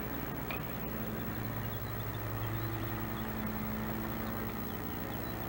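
A steady low mechanical hum, like a motor running, with a couple of held low tones that swell slightly in the middle.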